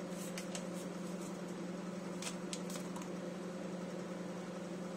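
Plastic spoon stirring casserole powder into a watery sauce in a plastic bowl, with a few short scrapes and rustles about half a second and two and a half seconds in, over a steady low hum.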